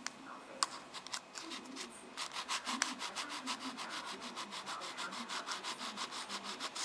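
Memory card's retail packaging being worked open by hand: quick, even scratching strokes, about five a second, with a couple of sharper clicks in the first few seconds.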